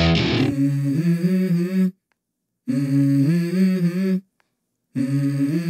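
Background music: a distorted electric guitar cuts off about half a second in, then an unaccompanied wordless vocal melody follows in three short phrases separated by brief silences.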